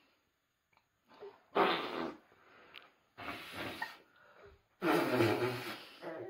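A person's breathy, unvoiced exhalations up close: three huffs about a second and a half apart, the last the longest.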